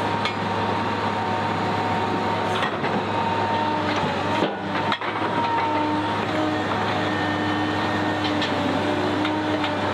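Hydraulic breaker on a Cat M318D excavator hammering, a steady dense clatter over the running machine, with a short break about halfway.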